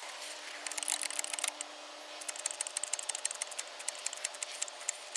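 Hydraulic bottle jack under the front suspension being worked to lift the car, a fast run of small metallic clicks that comes in spurts and grows denser past the middle.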